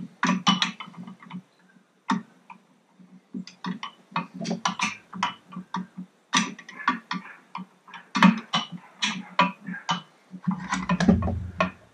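Irregular metallic clicks, taps and clinks of hand tools and small parts being worked on an outboard powerhead while the water tube is fitted, with a dull low thud near the end.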